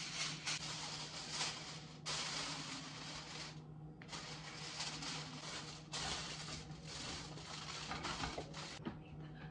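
Aluminum foil being pulled from its roll and handled: repeated spells of crinkling and rustling, each a second or two long, breaking off sharply.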